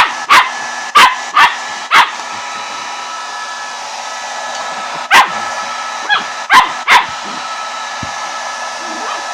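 A dog barking in two bouts, five sharp barks in the first two seconds and four more between about five and seven seconds in, at a hair dryer that runs steadily with a constant whirring hum.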